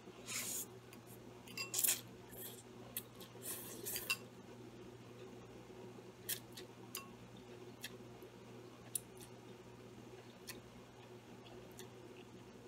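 Noodles being slurped and chewed from a ceramic bowl with chopsticks: several short slurps in the first four seconds, then a few sparse clicks of chopsticks against the bowl. A low steady hum runs underneath.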